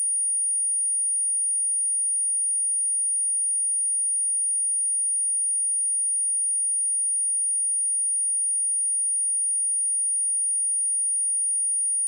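A pure 9557 Hz sine-wave test tone: one high-pitched, steady whistle held at a constant level. It is played as a speaker test and speaker-cleaning tone, meant to shake water and dust out of a speaker.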